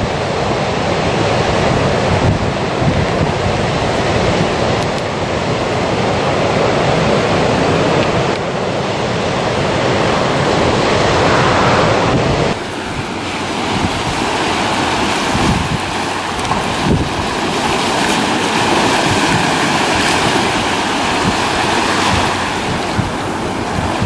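Small waves breaking and washing up on a sandy beach, a steady surf wash, with wind buffeting the microphone in low rumbles. The sound changes abruptly about halfway through.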